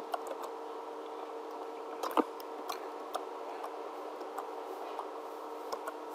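A steady low electrical hum with a few faint, scattered clicks, a small cluster of them about two seconds in.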